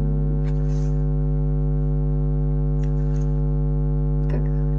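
Loud, steady electrical mains hum, a low buzz with a long stack of overtones, with a few faint small clicks from handling.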